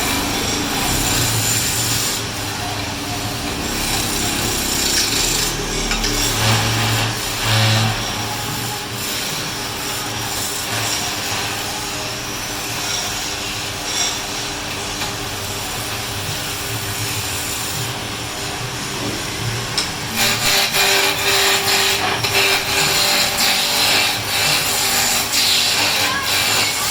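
Wood lathe running while a turning tool cuts the spinning wood: a steady rough scraping over a faint motor hum, growing louder and rougher about twenty seconds in.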